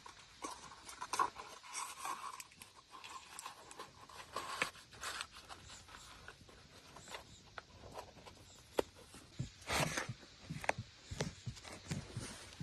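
Irregular clicks, knocks and rustling of objects being handled, with a louder cluster of knocks about ten seconds in.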